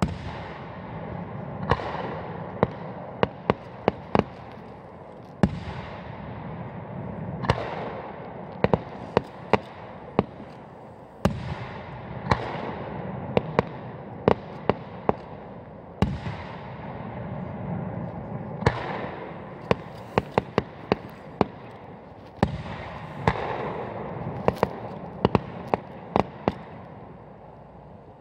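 Aerial firework shells bursting one after another: sharp bangs, sometimes single and sometimes in rapid clusters, over a continuous rumbling wash of the display.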